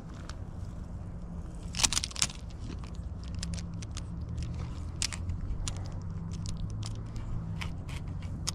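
Irregular sharp clicks and crunches over a low steady hum, with a close cluster of louder clicks about two seconds in.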